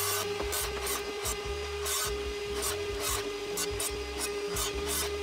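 Evolution R185SMS-Li 18V cordless sliding mitre saw running with a steady motor whine while its blade cuts down through a wooden board. A rasping cutting noise comes and goes over the whine.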